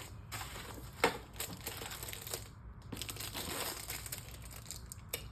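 Packaging crinkling and rustling in irregular handling noise as items are taken out of a shipping box, with one sharp click about a second in.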